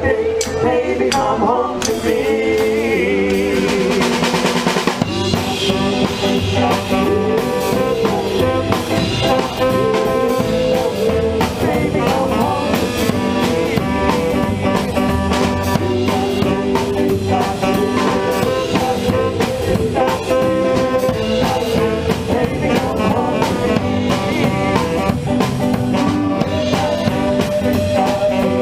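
Live rock-and-roll band playing, with a drum kit keeping a steady beat on snare and bass drum under sustained instrumental notes.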